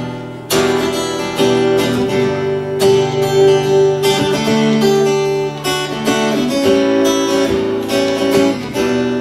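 Acoustic guitar strummed in a steady rhythm, ringing chords in an instrumental passage with no singing.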